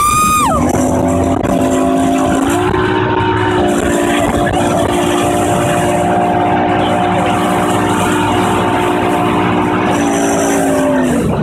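Mercury outboard motor on the tow boat running at speed over rushing water and spray. The engine note steps up in pitch about two and a half seconds in, holds steady, then drops near the end as the throttle eases.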